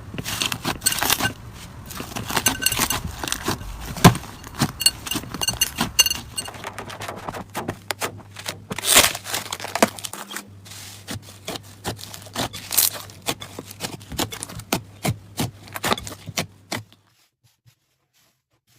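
Slime being squeezed and pressed by hand close to the microphone: dense crackling and popping clicks that stop abruptly about two seconds before the end.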